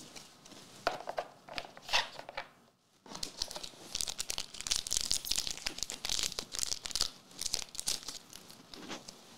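A trading-card booster pack being torn open and its wrapper crinkled by hand. A few sharp tears come about a second in, then after a brief pause several seconds of dense crinkling.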